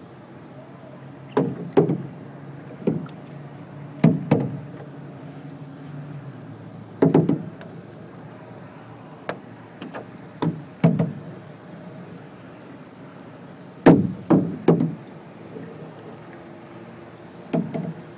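A wooden paddle knocking against the side of a small boat on its strokes while it is paddled hard against a flood current. The knocks come singly and in clusters of two or three every few seconds, over a steady low hum.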